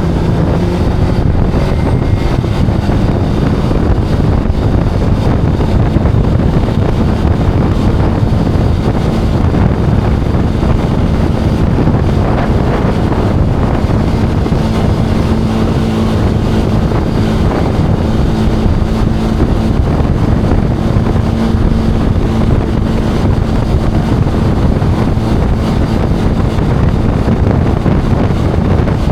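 Zontes cruiser motorcycle engine running while riding at a fairly steady speed, heavily mixed with wind buffeting on the microphone.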